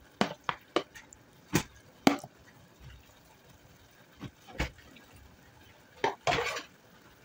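A metal utensil clicking against a plastic container and a nonstick frying pan as pieces of starch-coated chicken breast are put into the pan. There are a handful of sharp, irregular clicks, then a short scraping rustle about six seconds in.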